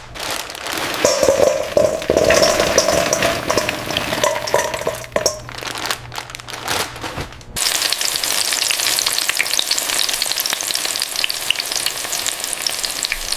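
Chicken nuggets frying in hot oil, a dense crackling sizzle. Under the first half there is a low steady hum. About halfway through the sound changes abruptly to a steadier, finer sizzle.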